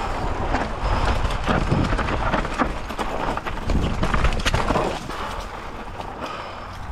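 Mountain bike riding down a rough, dry dirt trail: tyre noise over dirt and rocks with many short rattling knocks from the bike, over a low wind rumble. It eases off about five seconds in.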